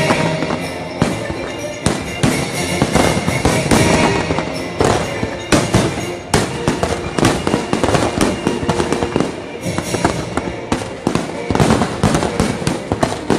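Fireworks bursting in quick succession over the fireworks show's music soundtrack.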